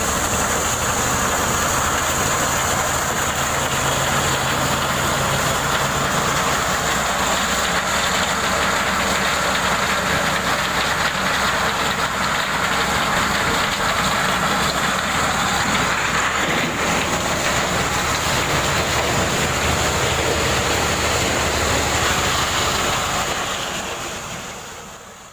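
Engine-driven corn sheller running steadily while threshing unhusked ears: a dense mechanical din with an engine hum beneath it and a steady high whine. It fades out near the end.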